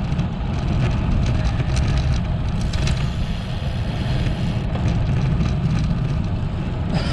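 Wind rushing over the camera's microphone on a moving road bike, a steady low rumble with road and tyre noise under it.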